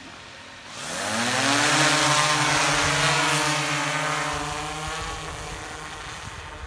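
A DJI Matrice 210 RTK quadcopter's motors and propellers spin up with a rising whine and lift off into a steady hum, which fades over the last few seconds as the drone climbs away.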